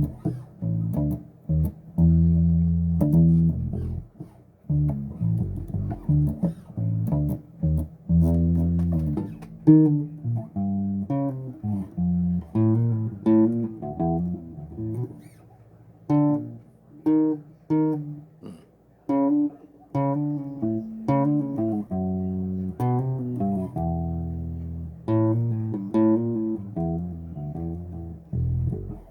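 Electric bass guitar playing a funk line of plucked notes, deep low notes in the first seconds, moving into a higher register from about ten seconds in.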